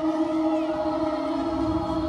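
Show soundtrack music: a sustained droning chord held steady.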